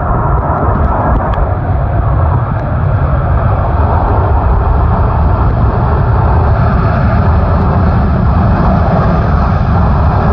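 Airbus A380's four jet engines running with a loud, steady rumbling roar that grows slightly louder as the airliner rolls along the runway on departure.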